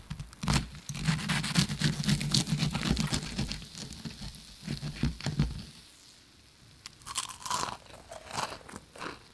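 Knife and fork cutting through the crust of fried chicken: a dense run of crisp crunches and crackles that eases off about six seconds in, then a few more crunches near the end.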